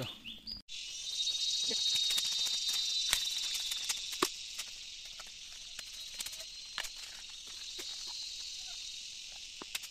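Steady, high insect chorus that starts abruptly about half a second in, with scattered sharp clicks of knives cutting and peeling fresh bamboo shoots.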